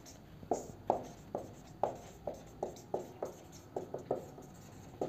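Marker pen writing on a whiteboard: about a dozen short strokes and taps, two or three a second.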